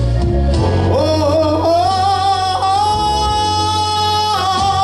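Gospel singing: a singer's voice slides up about a second in, holds one long high note for about three seconds, then falls away near the end, over a steady low accompaniment.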